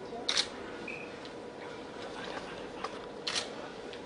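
Two brief, sharp clicks about three seconds apart over a steady faint hum of room tone.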